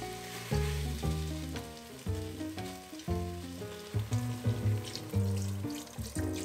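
Sliced beef sizzling in a pot as it is stirred with chopsticks, with chicken broth poured in from a carton in the second half. Background music with clearly changing notes is louder than the cooking.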